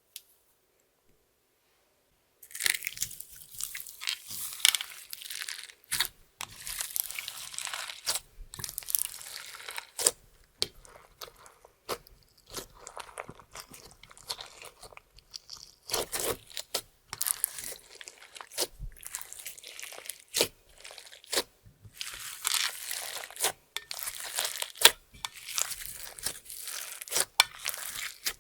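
Clear slime worked by hand with makeup and glitter mixed in, giving crunchy crackles and sharp clicks in a dense, uneven run. It starts after a couple of seconds of near silence.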